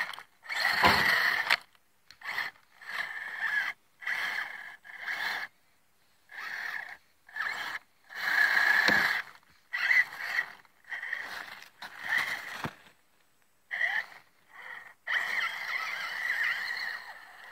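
ECX Barrage Gen2 1/24-scale RC crawler's small electric motor and gears whining in short stop-and-go throttle bursts as it crawls through snow.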